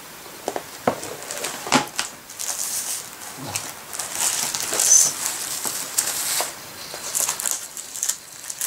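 Clear plastic sheet protectors in a ring binder rustling and crinkling as a page is turned over. A few sharp clicks and taps come in the first two seconds.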